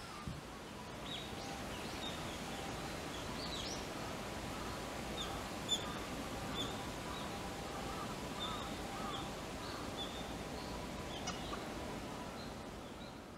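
Small birds chirping: many short, high calls scattered irregularly over a steady outdoor background hiss.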